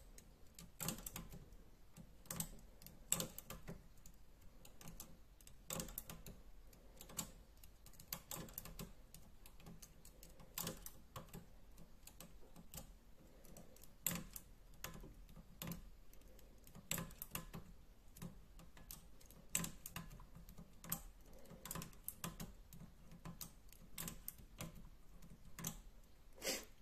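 A metal transfer tool and the latch needles of a domestic knitting machine clicking as stitches are moved by hand: light, irregular clicks, one or two a second.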